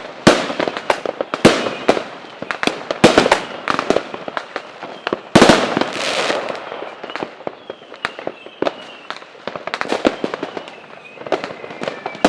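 Fireworks going off: a rapid, irregular run of sharp bangs and crackles, with a longer crackling burst about five seconds in and faint whistling in the second half.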